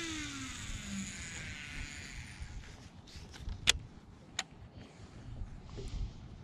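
A boat motor's whine falling steadily in pitch and fading out over the first second, as the motor winds down. Then quiet, with a few sharp clicks from handling a baitcasting rod and reel.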